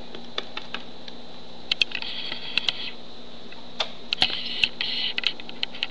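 Small plastic toy animal figures and a plastic playset being handled on a wooden surface: a scatter of light clicks and taps, with two short spells of rustling and scraping about two and four seconds in, over a steady faint hum.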